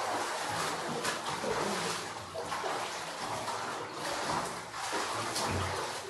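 Water sloshing and splashing in a filled bathtub as a person swims arm strokes through it.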